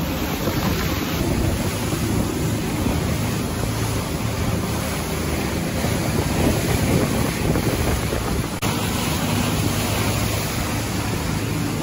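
Charter boat under way in rough seas: a steady engine hum under the rush and slap of water against the hull, with wind buffeting the microphone.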